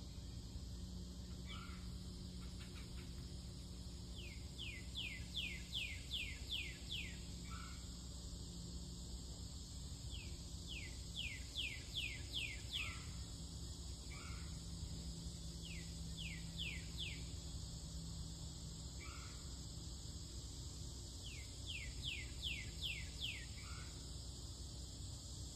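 A songbird repeating a phrase of five to eight quick rising notes about every five or six seconds, with single softer, lower notes between the phrases, over a steady low background hum.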